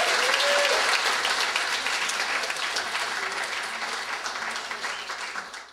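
Audience applauding, dying away gradually over the last few seconds. A voice calls out briefly in the first second.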